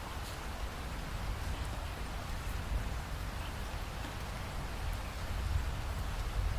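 Steady rain, an even hiss with scattered faint drop ticks over a low rumble.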